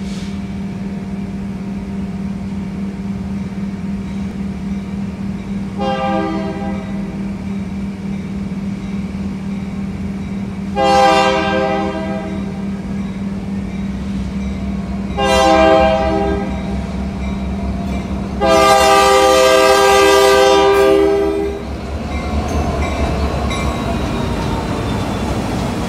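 Union Pacific diesel locomotive's air horn sounding four blasts for a road crossing, the last held about three seconds, while the locomotive's engine rumble grows as it approaches and passes close by. A generator's steady hum runs underneath.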